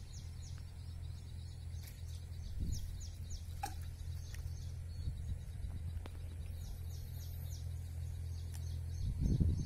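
Outdoor ambience: a steady low rumble under a bird calling in short runs of quick, high falling notes, three times.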